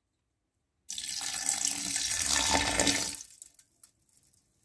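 Aqua regia poured into a vessel onto a heap of broken ceramic circuit-board pieces, a splashing pour starting about a second in, lasting about two seconds and then tailing off.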